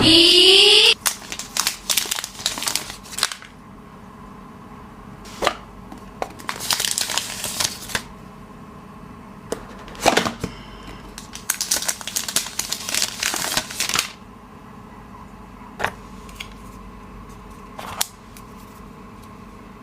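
Smartphone packaging being unboxed by hand: scattered sharp clicks and taps of the box and parts being handled, with two longer stretches of crinkling, tearing plastic wrap.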